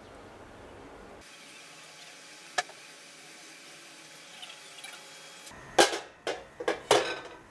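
Low room noise with a single click, then a quick run of about five sharp metallic knocks and clanks near the end as an aluminium cooking pot is handled.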